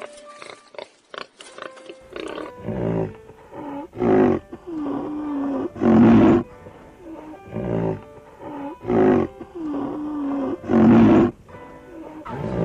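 Rhinoceros calling: loud, rough, breathy calls every second or two, with a lower drawn-out moan that wavers in pitch before each of the two loudest. The same pattern comes round twice. In the first two seconds there are only faint clicks.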